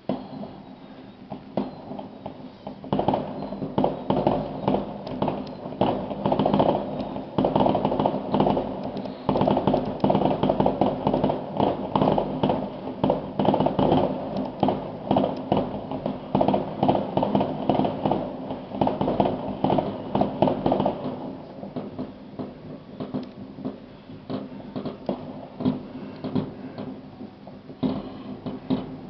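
Fireworks going off in a dense, rapid crackle of many small bangs. The crackle starts about three seconds in and thins to scattered pops after about twenty seconds.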